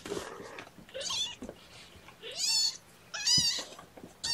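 Young kittens, about three and a half weeks old, mewing: about four short, high-pitched cries, the last starting near the end. These are hungry cries at feeding time.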